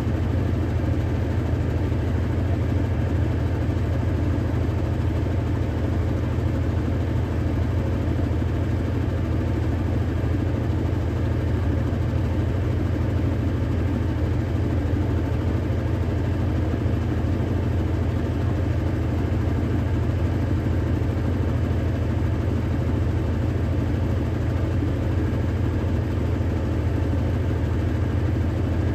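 Electrolux Ecologic 12 kg washing machine in its intermediate spin: the drum turning at speed with a steady, unchanging low hum.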